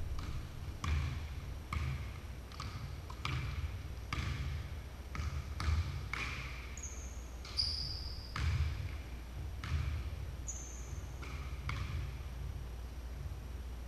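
Basketball dribbled on a hardwood gym floor: repeated bounces about once a second, echoing in the large hall, with a few short high squeaks in the middle.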